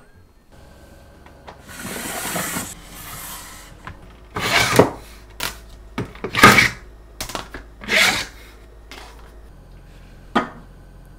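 Cutting boards being slid out of a slotted storage stand and laid on a countertop: a rubbing scrape, then a run of sharp clacks and knocks as the boards hit the stand and counter, and one last knock near the end.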